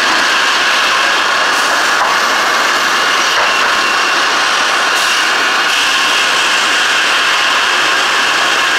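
Sawmill machinery running: a loud, steady din with a few faint high whines over it.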